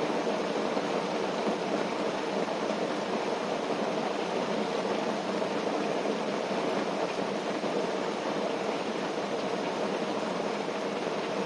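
Steady rain falling on a tent, an even rushing patter with no breaks.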